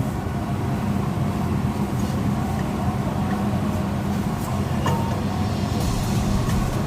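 A steady low rumble with a metal utensil clinking once against the pan about five seconds in, as flour is stirred in the pan to brown it.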